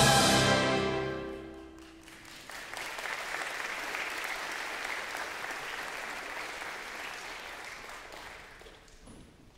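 A choir and orchestra's final held chord ends and rings away in the room over the first two seconds, then the congregation applauds for about six seconds, fading out near the end.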